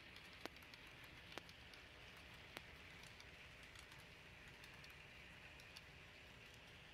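HO-scale model freight cars rolling past: a faint steady hiss of metal wheels on the track, with sharp irregular clicks as the wheels cross rail joints, three louder clicks in the first three seconds.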